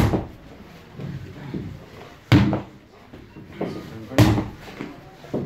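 Sledgehammer struck down hard three times, about two seconds apart, each blow a heavy thud.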